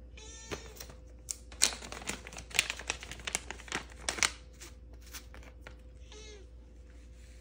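Plastic catnip bag crinkling and crackling as it is handled, a run of sharp crackles from about a second in that lasts about three seconds. A cat gives a short meow at the start and again near the end.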